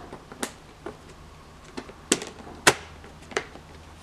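Sharp plastic clicks and knocks, about six at uneven intervals with the loudest two a little past halfway, as hands press the rubber seal onto the top edge of a BMW E46 xenon headlight's plastic housing.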